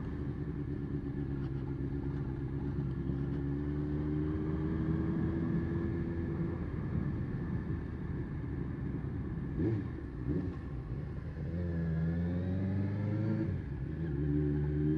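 Suzuki GSX-R600 SRAD's inline-four engine and noisy exhaust on the move at low speed, ridden gently while it warms up. Its pitch climbs slowly over the first several seconds, dips and wavers about twelve seconds in as the bike slows, then climbs again near the end.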